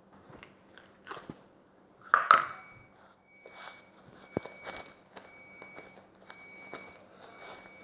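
Slime being squeezed and pressed by hand, making irregular crackles, pops and squishes, the loudest about two seconds in.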